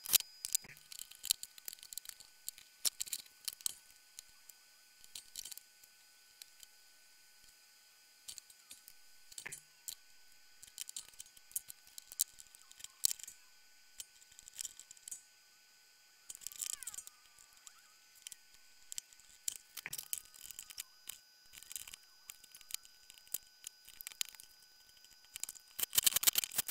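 Plastic and metal parts of a Ryobi 18V orbital sander handled and fitted together by hand: scattered light clicks, taps and rattles, with a louder clatter near the end.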